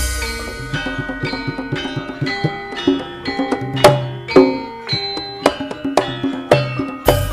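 Javanese gamelan (karawitan) music: struck bronze metallophones ringing out pitched notes over kendang drum strokes and a deep bass. Just before the end a fast run of sharp, high clicks comes in.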